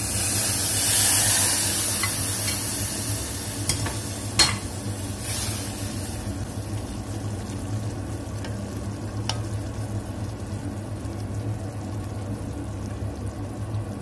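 Toasted sesame seeds poured into a steel pot of simmering honey-soy sauce, with a strong sizzling hiss in the first couple of seconds. Then a wooden spatula stirs the sauce, with a few sharp knocks against the pot, over a steady sizzle.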